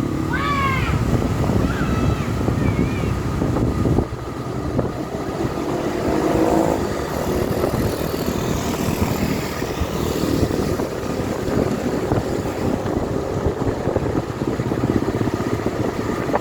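Steady vehicle engine and road rumble from moving traffic, with a short pitch glide near the start and a brief pitched engine note around six seconds in.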